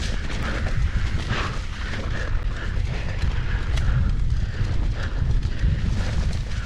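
A mountain bike descending a dirt singletrack: steady wind rumble on the camera microphone over the crunch of knobby tyres on dirt and a constant patter of clicks and rattles from the bike.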